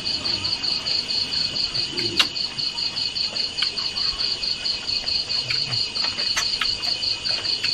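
Crickets chirping at night in a steady, fast, even pulse that runs on without a break, with a faint click or two of tableware.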